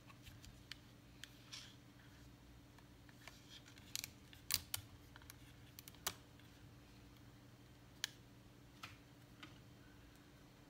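Scattered short, sharp clicks and taps of small parts and tools being handled on an opened laptop during reassembly, the loudest in a cluster about four to five seconds in, over a faint steady low hum.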